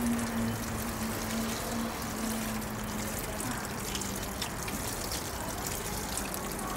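Water from a garden hose running and splashing onto skin as a tattooed leg is rinsed and rubbed by hand: a steady pouring and trickling.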